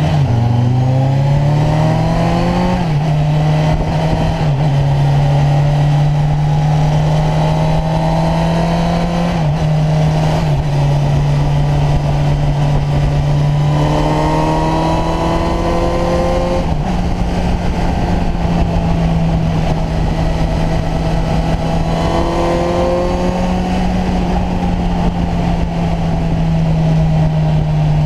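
Kawasaki Ninja 1000's inline-four engine running at a steady cruise, its note dipping briefly several times, under a constant rushing noise.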